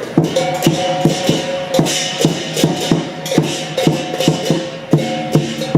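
Lion dance troupe's percussion band playing a fast, steady beat of drum strikes, about three a second, with clashing cymbals and a ringing gong tone underneath.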